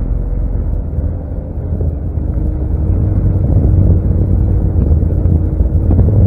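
Small motorboat underway: its engine drones steadily under a heavy rumble of wind on the microphone and water rushing past the hull, growing louder as the boat picks up speed.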